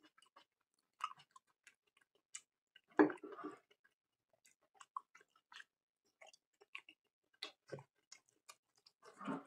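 A person chewing food, with wet mouth clicks and smacks scattered through. There is a louder thump about three seconds in and another short cluster of sounds near the end.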